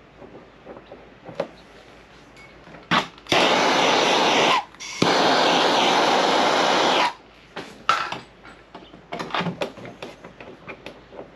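Gas torch flame hissing in two long bursts, about one second then two seconds, around the middle, heating the aluminium hood panel to soften it for paintless dent removal. Light clicks and taps before and after.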